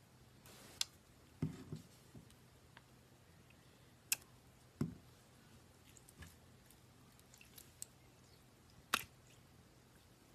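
Slime being kneaded and mixed with clay by hand: scattered quiet squishes with a few sharp little clicks and pops, the two loudest pops about four and nine seconds in.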